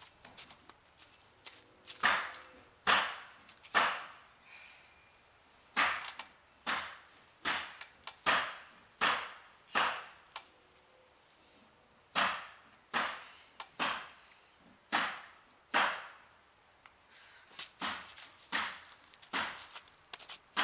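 Woman doing a set of pull-ups on a wooden backyard pull-up frame: short rasping bursts about one a second, in runs with short pauses between.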